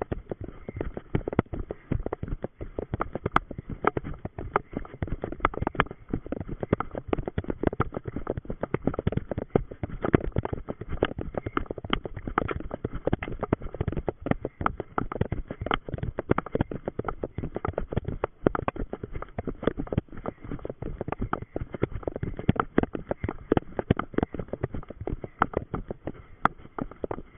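Running footsteps on the forest floor and through undergrowth, a quick, uneven stream of thuds and knocks, close up from a camera worn by the runner.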